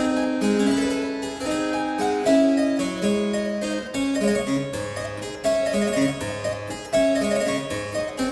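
Instrumental keyboard music: a steady run of crisp notes, a melody over a moving bass line.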